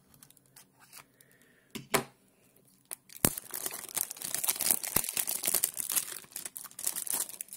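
Cellophane shrink-wrap being torn off a CD jewel case: a few soft clicks of plastic, then about three seconds in a sharp snap and a long run of crackling, crinkling wrap.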